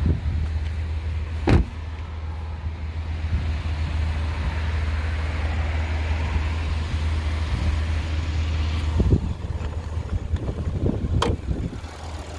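2019 Cadillac XT5's 3.6-litre V6 idling steadily as a low hum, with a few sharp knocks: one about a second and a half in, then two more near the end.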